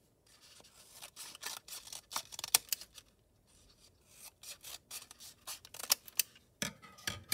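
Scissors snipping through card, a run of short, irregular cuts with a brief pause about halfway through.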